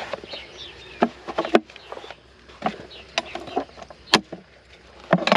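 Farrier's rasp scraping across a horse's hoof wall in short, uneven strokes, about seven of them, as the outer wall is dressed and smoothed from the top.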